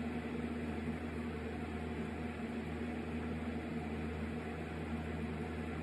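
Room tone: a steady low hum with an even hiss.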